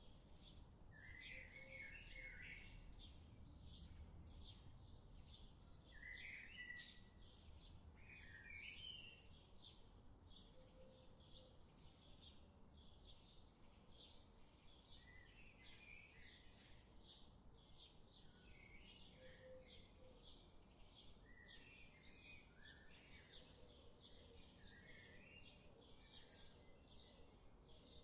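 Faint bird chorus: a steady run of short, high chirps repeating two or three times a second, with lower warbled phrases now and then.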